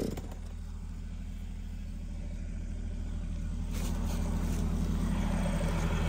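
Heavy-equipment engine idling low and steady, growing gradually louder.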